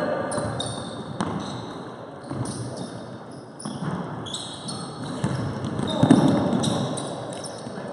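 Basketball game in play: trainers squeaking sharply and often on the court floor, the ball bouncing, and indistinct calls from players, loudest about six seconds in.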